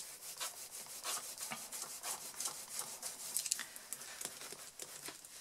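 Foam brayer rolled back and forth, first over cardstock and then across an ink pad to re-ink it: a faint, soft rubbing in quick repeated strokes.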